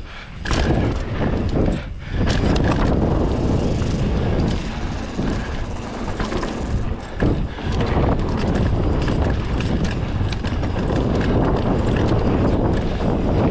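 Heavy wind buffeting the microphone: a loud, continuous rushing noise that gusts and briefly dips a few times.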